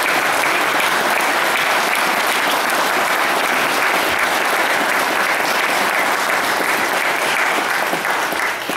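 Congregation applauding steadily, the clapping dying away near the end.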